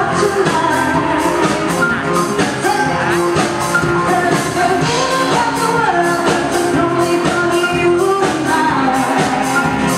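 Live band playing a pop song: a woman singing into a microphone over electric bass and a drum kit keeping a steady beat.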